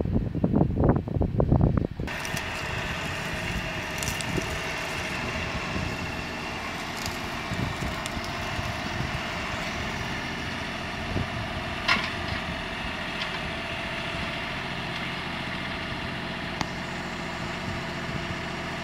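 Wind buffeting the microphone, then an abrupt cut about two seconds in to a tractor engine idling steadily, with a few light knocks over it.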